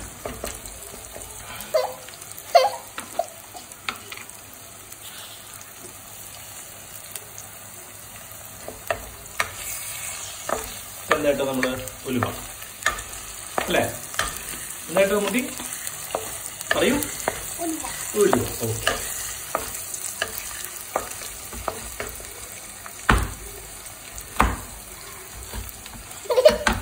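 Shallots, crushed ginger and garlic sautéing in coconut oil in a clay pot with a light sizzle, while a wooden spatula stirs and scrapes them against the pot. There are a few sharp knocks near the end.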